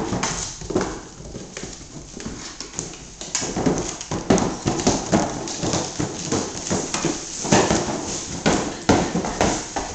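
Small cardboard box being dragged, shoved and knocked about on a hardwood floor by a puppy: irregular scraping and knocking, mixed with the clatter of its claws on the boards.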